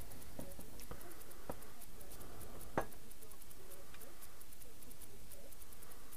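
A few light, sharp clicks of a screwdriver tip against a stainless-steel Honda motorcycle silencer, the sharpest about three seconds in, over a steady low background hiss.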